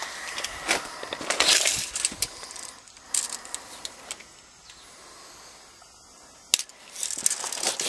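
Handling noise from a steel tape measure being pulled out and held against condenser coils: irregular clicks and rattling with rustling, quieter in the middle, and one sharp click about six and a half seconds in.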